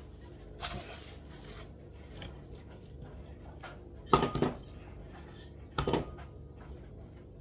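Kitchenware handled on a counter: a short rustling swish about half a second in, then a quick cluster of sharp clinking knocks about four seconds in and one more knock near six seconds.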